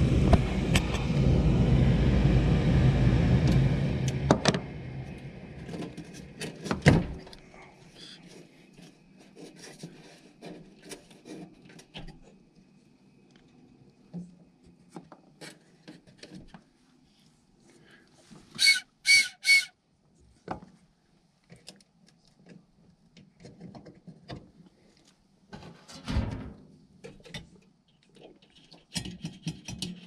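Furnace fan motor running, then shutting off about four seconds in and winding down. After that come light clicks and handling at the furnace's wiring, three short electronic beeps a little past halfway, and a few knocks near the end.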